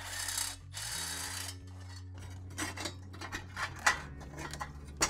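Large stainless worm-drive hose clamp being worked around a catalytic converter's heat shield: two scraping slides of the metal band, then a run of quick, irregular metallic clicks, about three a second. Its sound is likened to a box of razor blades.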